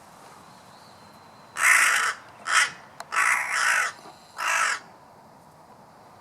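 Crow cawing: four caws in quick succession starting about a second and a half in, the third one drawn out longer than the others.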